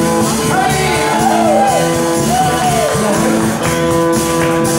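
Live rock band playing electric guitars, bass and drums, with a voice singing over the band in long arching phrases.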